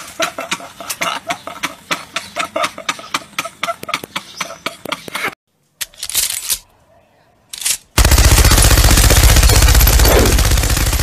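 Fast rhythmic pulsing for about five seconds, then a short gap with two brief mechanical clicks. About eight seconds in, a loud sustained burst of rapid machine-gun fire begins; it is a sound effect.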